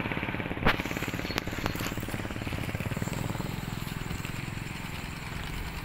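Motorcycle engine running at riding speed, a steady rapid low pulsing, with a sharp click about two-thirds of a second in and a couple of fainter ticks just after.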